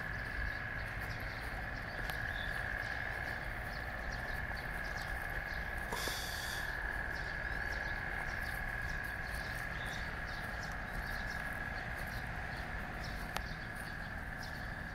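Outdoor ambience of steady high-pitched insect droning with a low rumble of wind on the microphone, and a short hiss about six seconds in.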